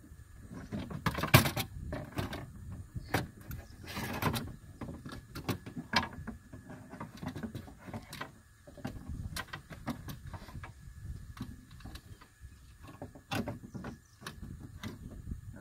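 Replacement window regulator and motor assembly knocking and rattling against the inner door frame of a 2011 Buick Lucerne as it is wiggled and jostled into position: irregular clicks and clunks, the loudest about a second and a half in and about four seconds in.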